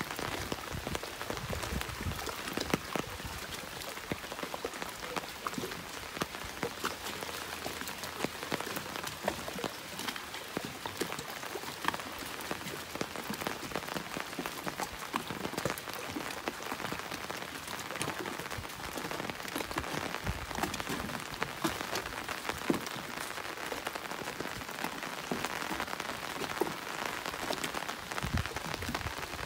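Steady rainfall: a constant hiss of rain with many individual drops ticking close by, the level even throughout.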